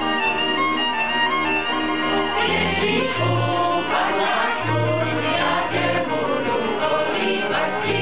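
Czech folk band of fiddles and double bass playing a Christmas carol. About two and a half seconds in, the group of men and women starts singing along, with the bass sounding low notes beneath.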